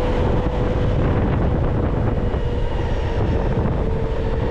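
Wind rushing over the microphone on a moving Zero SR/S electric motorcycle, with the steady whine of its electric motor above it. The whine dips slightly in pitch about three seconds in.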